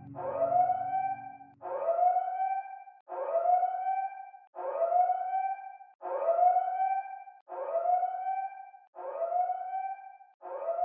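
Siren sounding a repeated short rising wail, each sweep climbing and then holding briefly, about every second and a half.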